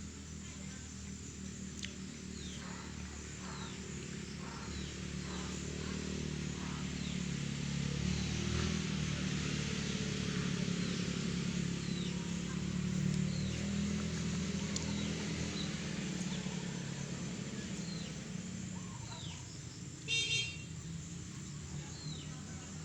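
Background outdoor sound: a vehicle engine hum that swells and fades as it passes, small birds chirping, and a brief high horn toot near the end.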